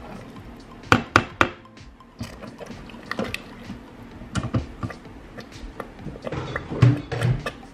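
Kidney beans being added to chili in a stainless steel Instant Pot insert: three sharp knocks about a second in, then a plastic spoon stirring and scraping against the metal pot with scattered clicks.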